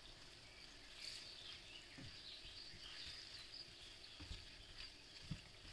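Chicken livers frying quietly in a nonstick pan with a faint, uneven sizzle, and a few soft knocks of a spatula against the pan as the pieces are cut smaller.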